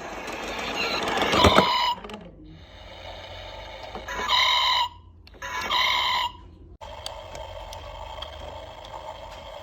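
Electronic sound effects from a remote-control toy car: a buzzy, high-pitched tone heard in several separate stretches, each starting and stopping abruptly, the loudest in the first two seconds and two short loud bursts around the middle, then a steadier quieter stretch to the end.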